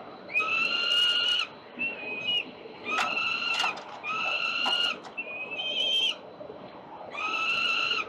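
Juvenile peregrine falcons giving a run of loud, drawn-out wailing calls. There are about six calls, each up to a second long, and a couple of shorter, higher-pitched ones about two and six seconds in. These are the food-begging wails of young falcons.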